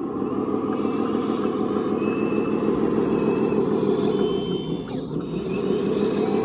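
Radio-controlled construction machinery running: a steady, buzzing motor and gear drone that eases briefly just before the five-second mark and then picks up again.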